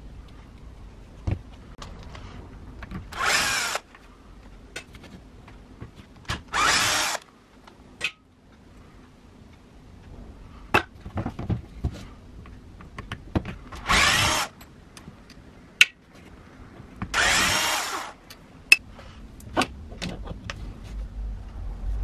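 Cordless power screwdriver spinning out screws in four short runs of about a second or less, a few seconds apart, loosening the screws that hold the angle grinder's gear head to its motor housing. Clicks and knocks of metal parts being handled come between the runs.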